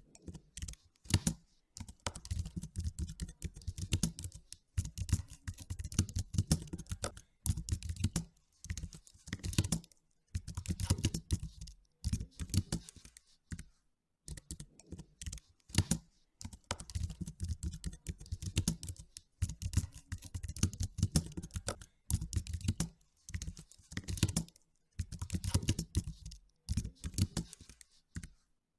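Typing on a computer keyboard: quick runs of keystrokes, each lasting a second or two, broken by short pauses.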